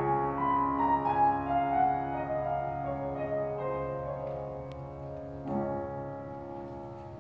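Slow instrumental accompaniment led by piano over held chords, the melody stepping slowly and growing gradually quieter, with a small swell about five and a half seconds in.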